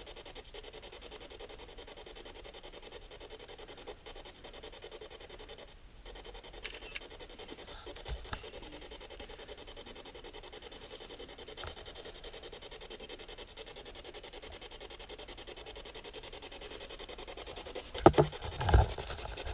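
Quiet room tone: a steady low hiss and hum, with a couple of faint clicks midway and a few louder knocks or bumps near the end.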